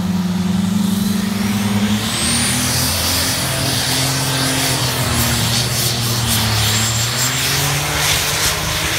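Pulling tractor's engine running hard under load as it drags the weight-transfer sled down the track. About two seconds in its note drops and a high whine rises and holds, with a run of sharp cracks near the end.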